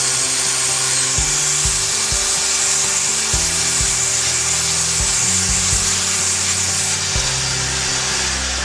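Sherline CNC mill cutting, its spindle spun fast on a 10,000 RPM pulley set: a steady high whine over cutting noise. Lower motor tones change pitch in steps every second or so as the machine moves.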